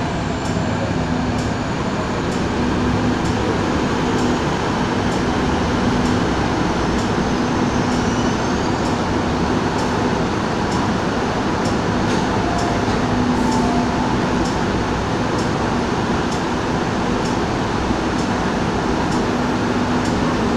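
MTR electric train standing at the platform: a steady hum and rumble from the train and station, with a low tone that comes and goes and faint ticking repeating about once a second.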